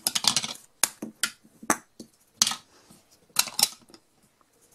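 Hollow plastic nesting-doll shells clicking and knocking against each other as they are fitted back inside one another, a run of irregular sharp clicks.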